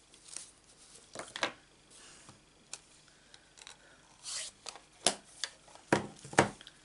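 Craft supplies being handled and set down on a cutting mat: a clear acrylic stamp block and a plastic-cased ink pad give a scattered series of short clicks and taps, with a brief rustle of sliding about halfway through.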